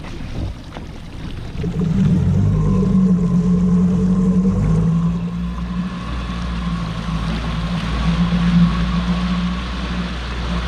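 A boat's outboard motor runs steadily with the boat underway, over a hiss of water and wind. It gets louder about two seconds in and holds there.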